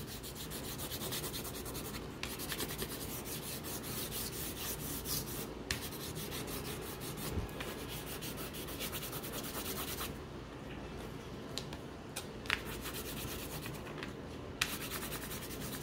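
A green crayon rubbed rapidly back and forth across paper on a clipboard, pressed lightly to shade: a steady, scratchy strokes sound that grows softer for a few seconds from about ten seconds in.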